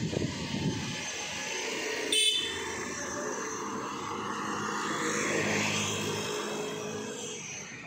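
Street traffic: a vehicle horn honks once, briefly, about two seconds in, and a motor vehicle's engine drones past close by, its noise swelling and then fading near the end.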